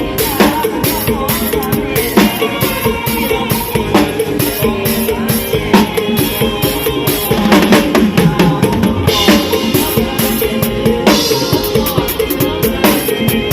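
Drum kit playing a steady, driving beat of snare, bass drum and rimshots with a louder accent about every two seconds, over a full band playing an Isan mor lam song.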